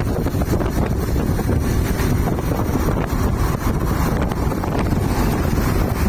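Wind buffeting the microphone: a steady, loud low rumble with no clear tones.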